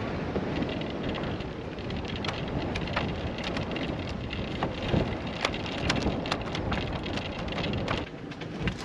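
Wind buffeting the microphone: a steady rumbling rush, with scattered light clicks and taps throughout.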